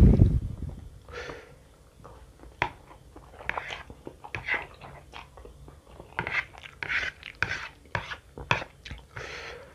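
Close-miked eating of spicy fried instant noodles with chopsticks: wet chewing and short slurps, with scattered small clicks. It opens with one loud breathy rush.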